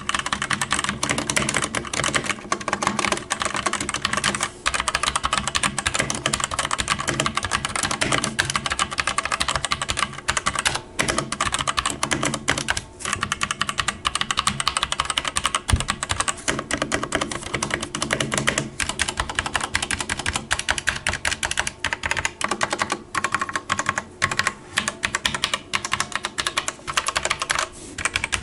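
Typing on a Hator Starfall budget mechanical keyboard with Outemu Red linear switches: a continuous run of key clicks with a few short gaps.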